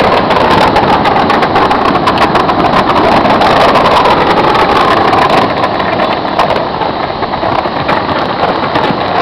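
A dense fireworks barrage: many bangs and crackles blending into a continuous rumbling roar, easing off slightly about two-thirds of the way through.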